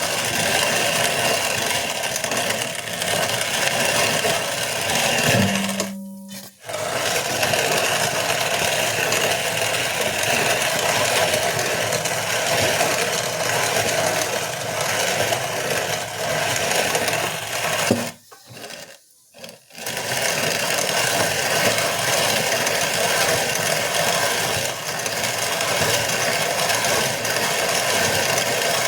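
Hand-cranked grain mill grinding kamut wheat berries into flour: a steady, rough grinding rasp that breaks off briefly about six seconds in and again for a moment between about eighteen and twenty seconds.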